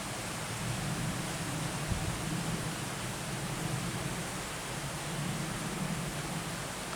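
Mountain river rushing steadily through a rocky gorge, a continuous even roar of water with a deeper rumble that swells and eases through the middle.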